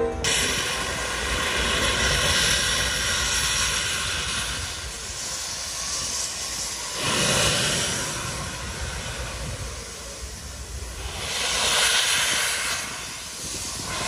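Steam locomotive venting steam around its cylinders: a loud, rushing hiss that swells and eases in surges every few seconds.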